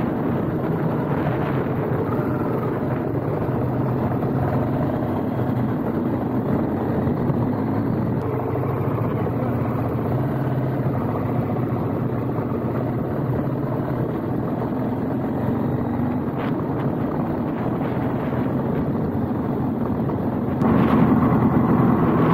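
KTM 790 Adventure's parallel-twin engine running steadily as the bike rides a gravel trail, with wind on the microphone; it gets louder near the end.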